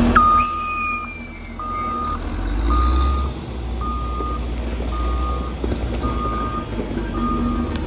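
Backup alarm of a Caterpillar 120K motor grader beeping about once a second at one steady pitch, over the low rumble of its diesel engine. A brief high, slightly falling squeal sounds right at the start.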